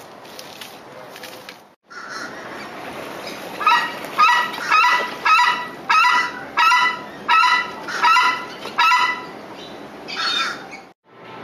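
Crested screamer calling: a series of about a dozen loud honking calls, about two a second, with one more after a short pause.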